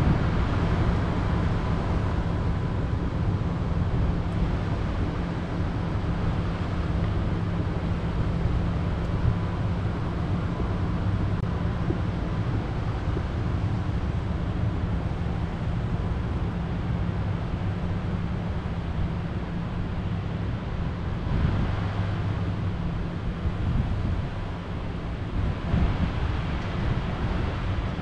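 Outdoor ambience of wind blowing across the microphone over a constant low hum. The wind comes in slightly stronger gusts in the last few seconds.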